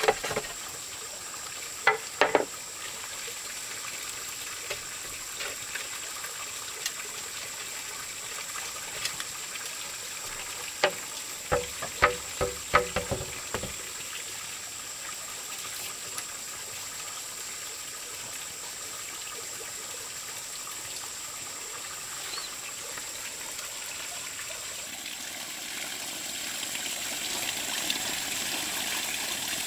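Sharp knocks of a chisel working a bamboo pole: a couple about two seconds in, then a quick cluster of knocks and thumps around the middle. Near the end a steady trickle of water runs from a bamboo pipe into a pond. A faint steady high whine sits under it all.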